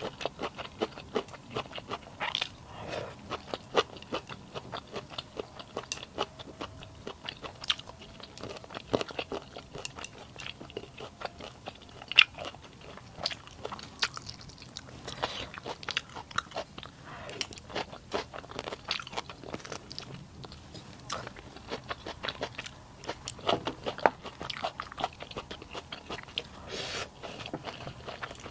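A person eating close to the microphone: biting and chewing food in a steady run of short crunchy clicks and smacks, with one sharper click about twelve seconds in.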